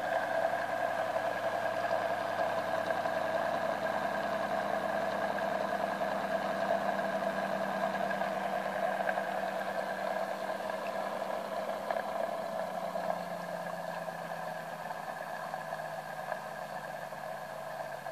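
Bedini-style pulse motor with its rotor spinning, giving a steady whirring hum. In the last third a lower tone in the hum slowly drops in pitch and the sound gets a little quieter.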